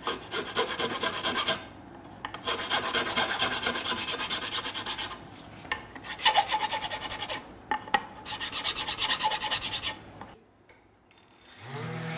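Metal hand file filing brass pins flush with the ash wood in four runs of rapid scraping strokes with short pauses between them. Right at the end a Festool random orbital sander starts up with a rising hum.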